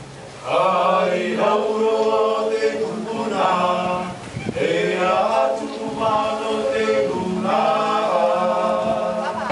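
Tahitian chant: several voices singing unaccompanied in long held phrases, each opening with an upward slide in pitch, with a short break about four and a half seconds in.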